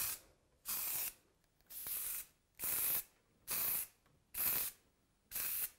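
Aerosol can of Ideale cocoa butter velvet spray hissing in short bursts, each about half a second long and about one a second apart, as it is sprayed in repeated passes.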